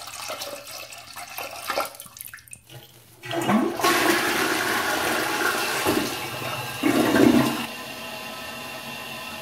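A stream of urine splashing into the water of a toilet bowl, then about three seconds in the toilet flushes with a sudden loud rush of water. It gurgles near the end and drops to a steadier, quieter hiss.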